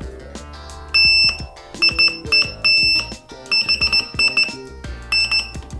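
Active piezo buzzer driven by an ESP32 beeping on one high-pitched tone: a longer beep about a second in, then a run of short beeps, about two or three a second, the circuit now working after the buzzer was turned to the right polarity.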